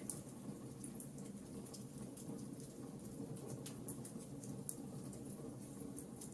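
Campfire crackling: a steady low sound of burning wood under scattered sharp, high-pitched pops and snaps, a few each second.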